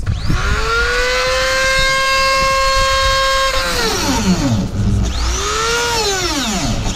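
Small corded rotary grinder spinning up to a steady high whine. From about three and a half seconds in, its pitch drops and recovers again and again as the tool bogs down cutting vent holes into the car's plastic front bumper.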